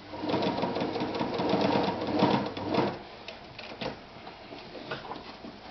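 Victoria 124 sewing machine sewing a straight stitch through garment leather for about three seconds, running evenly without catching, then stopping; a few separate clicks follow.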